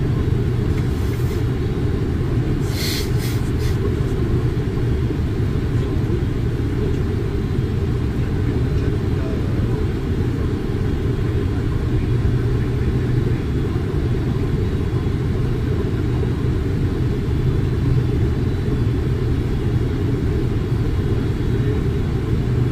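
Steady low rumble of airflow and engines inside a Boeing 747's flight deck in flight, with a few brief clicks about three seconds in.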